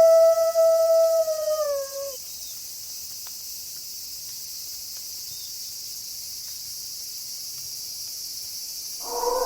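A wolf howl holds one steady note and drops away about two seconds in, over a constant chorus of night crickets. The crickets carry on alone until a second, lower howl begins near the end.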